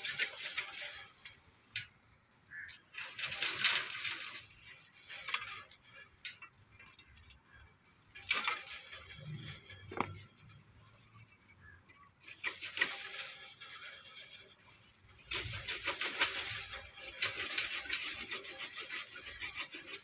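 Hand pruning saw cutting through almond tree branches, in several runs of quick back-and-forth rasping strokes with pauses between them. The longest run of sawing comes in the last few seconds.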